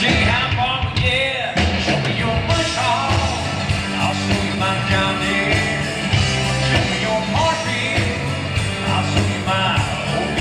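Live country band playing an up-tempo rock-and-roll number through a PA, with singing over the band.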